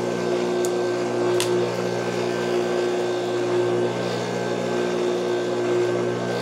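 Juki industrial sewing machine's electric motor running with a steady hum, with a couple of faint clicks about a second in.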